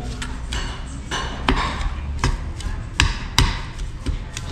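Eating utensils knocking and clinking against a bowl at the table: about five sharp, irregular knocks over a low, steady room hum.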